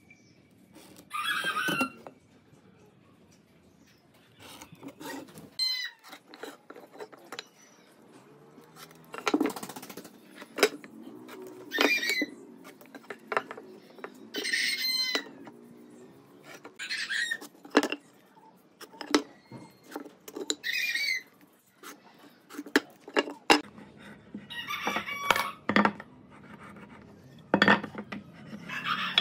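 Chickens calling at intervals, short pitched calls every few seconds, with a rooster crowing near the end. In between are sharp taps and clicks of a metal speed square and pencil against a wooden workbench.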